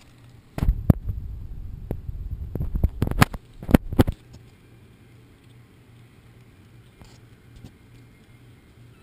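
Handling noise from a handheld camera: a low rumble with a few sharp knocks for about three and a half seconds, stopping suddenly, then a quiet background.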